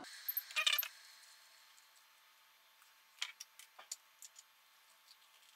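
Plastic button clicks of a digital kitchen timer being reset and started: a quick cluster of clicks about half a second in, then a few scattered sharp clicks between three and four and a half seconds.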